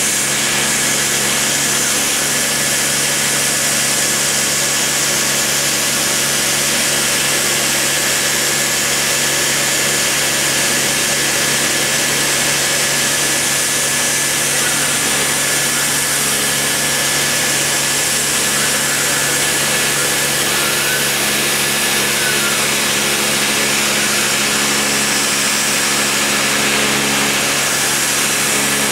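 Dremel rotary tool running at high speed while its small bit cuts a profile in MDF: a steady whine over a dense hiss, with a few steady hums underneath.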